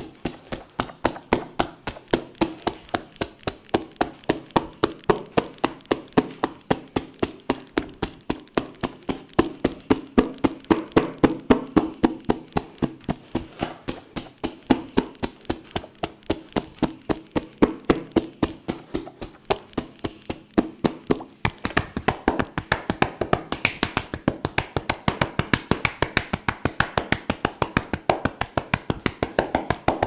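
Percussive massage strokes: hands tapping rapidly and evenly on the body at about four or five strokes a second, the taps turning brighter and sharper about two-thirds of the way through.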